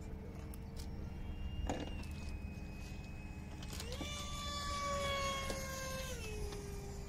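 Electric ducted-fan RC jet whining in flight, a steady tone with a stack of overtones. About four seconds in the pitch steps up as the fan speeds up, holds for about two seconds, then drops back.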